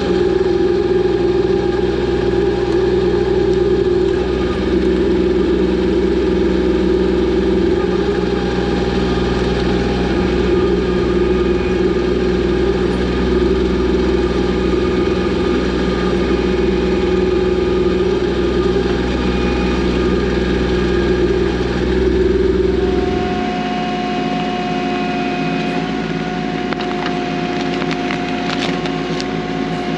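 Kubota B2650 compact tractor's three-cylinder diesel engine running steadily while working the backhoe. About three-quarters of the way through, the engine note changes: the deep low rumble drops away and a higher steady tone takes over, a little quieter.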